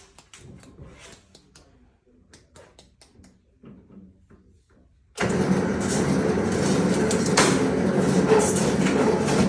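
Light clicks and handling noises of sheet metal. About five seconds in, a powered shop machine starts abruptly and runs steadily and loudly with a low hum.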